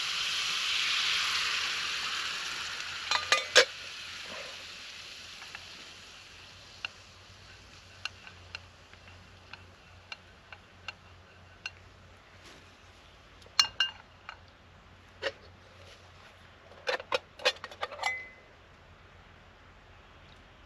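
Hot water hitting a hot skillet, sizzling loudly at first and fading over several seconds, to loosen the stuck-on fish. Then scattered metal clinks and scrapes of a utensil against the pan, with a quick cluster near the end.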